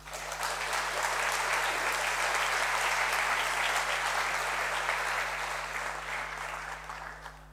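Audience applause, a dense clapping that builds within the first second, holds steady and dies away near the end.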